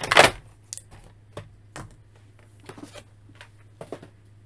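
Clear plastic toy packaging crinkling as it is pulled apart, loud for the first half-second, then a few light, scattered clicks and taps of plastic being handled.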